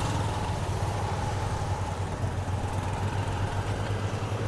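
An engine running steadily with a low hum, among outdoor road and traffic noise.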